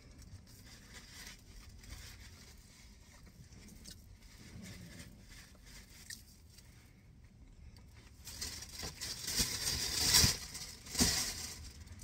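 Paper napkin rustling and crumpling for about three seconds, starting about eight seconds in, in uneven crackly bursts; before that only faint sounds.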